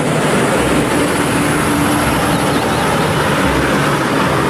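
Diesel engine of an LPG tanker semi-truck running steadily under load as the rig drives past, with tyre and road noise.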